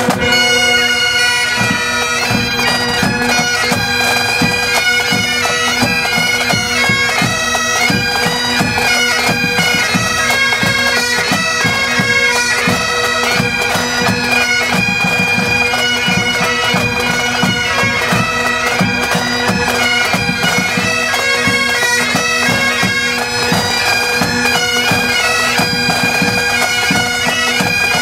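A pipe band of Great Highland bagpipes playing a tune in unison over steady humming drones, with snare drums beating along.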